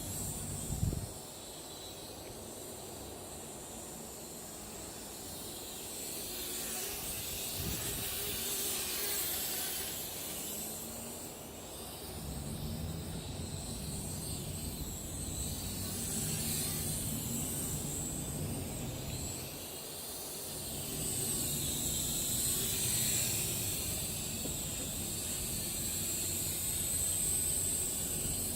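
Syma X11 mini quadcopter's small brushed motors and propellers whining at a steady high pitch that grows stronger and weaker, with wind rumbling on the microphone. A brief thump about a second in.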